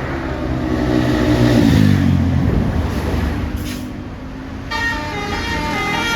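A bus engine runs past, its pitch falling as it goes. About three-quarters of the way in, a basuri multi-tone air horn starts playing a 'telolet' melody of stepping tones.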